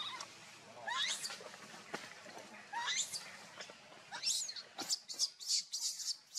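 Baby monkey squealing: a few drawn-out high squeals about a second apart, then a quicker string of short, sharp squeaks near the end as it is grabbed and pulled up.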